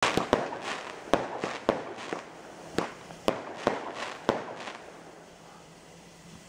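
Aerial fireworks bursting: a string of about eight sharp bangs, irregularly spaced, over a crackling hiss. It all dies away about five seconds in.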